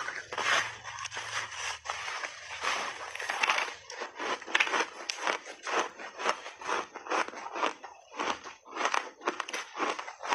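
Mouth chewing a big bite of refrozen layered block ice with mixed berries: a quick, continuous run of crisp crunches and cracking as the ice breaks between the teeth.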